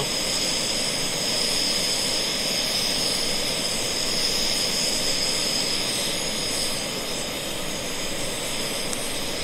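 Primus gas stove burner running at full flame with a steady hiss under a pot of water that is nearly at a rolling boil.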